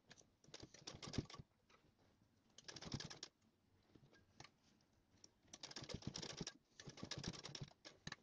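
Sewing machine stitching in four short runs of rapid clicking, each a second or less, with pauses between: stop-start stitching of stone-set lace around a curved blouse neckline, the fabric turned by hand between runs.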